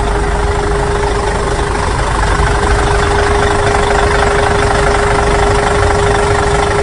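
A vehicle engine running steadily at idle, with a constant hum held throughout; it starts and cuts off abruptly.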